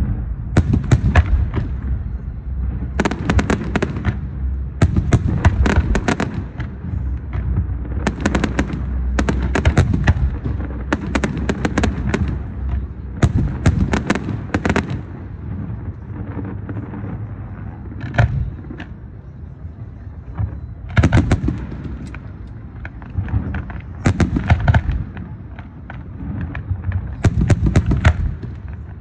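Aerial fireworks bursting: clusters of rapid crackling bangs every second or two over a continuous low rumble, easing off a little past the middle before picking up again.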